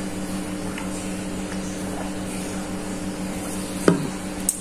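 A steady low mechanical hum, with a short knock about four seconds in and a faint click just after.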